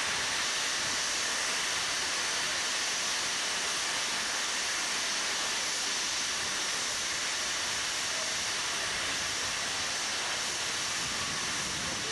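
Steady hiss of steam escaping from a steam locomotive, with no exhaust beats.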